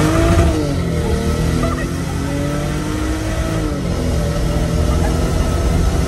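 Car engine accelerating hard, its pitch climbing and dropping at upshifts about a second in and again near four seconds, heard from the cabin of a convertible with its top down.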